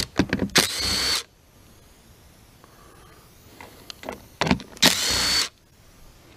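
Ridgid cordless drill driving out the chainsaw cover screws: the motor whines up in short runs, one ending about a second in and another of about half a second near five seconds in, with a few clicks of the bit on the screw between them.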